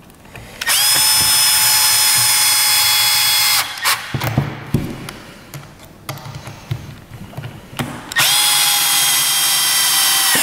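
Milwaukee cordless drill/driver running twice for about three seconds each, driving Phillips screws into the battery's plastic cover. Each time the motor whine rises briefly as it spins up, then holds steady. Light clicks and knocks of handling come between the two runs.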